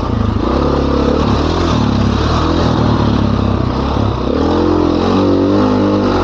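Dirt bike engine under throttle on a trail ride, its pitch rising and falling again and again as the rider opens and rolls off the throttle.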